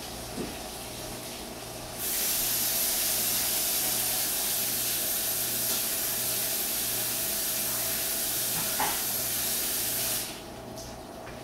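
A loud, steady hiss starts suddenly about two seconds in, holds even for about eight seconds, then cuts off suddenly.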